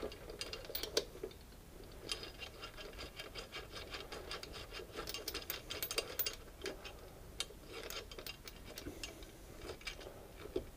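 Light, rapid metallic ticking and rubbing as a bolt is wound by hand into a motorcycle pannier rail mount, thickest from about two to eight seconds in.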